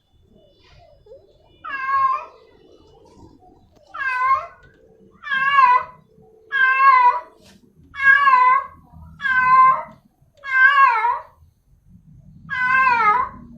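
Female cat in heat calling for a male: a run of eight meows, one every second or so, each wavering in pitch.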